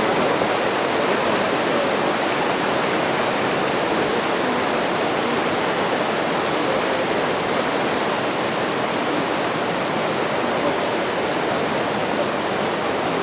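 Fast, shallow river rushing over rapids: a steady, even noise of white water.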